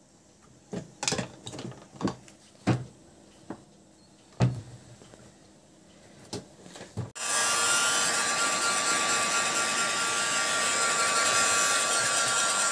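A few short knocks and taps as the shoes and tools are handled. About seven seconds in, a hot-air heat gun switches on abruptly and runs with a steady blowing hiss and a faint steady whine, heating the brushed-on contact glue on the sole to activate it.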